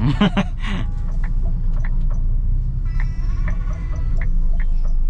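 Music playing through a car's sound system inside the cabin: a string of short, sharp notes over a steady low drone of the engine and road.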